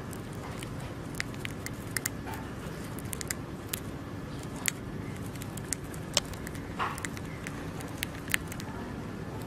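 A hamster nibbling a piece of food held in its paws: small, irregular crunchy clicks, a few a second, over a steady low background noise.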